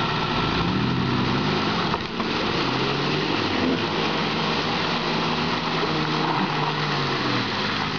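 4x4 engines working under load as one vehicle tows another through deep mud on a strap, the revs rising and falling.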